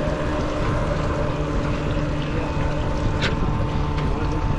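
A small fishing boat's motor running steadily while trolling, with wind on the microphone and one short tap about three seconds in.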